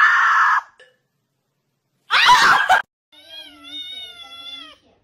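A small tabby kitten meowing for food: one long, wavering meow in the second half. Earlier there are two short, loud cries.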